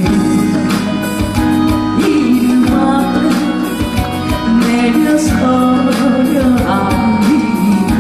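A singer performing a song over instrumental backing with a steady beat, holding some long notes.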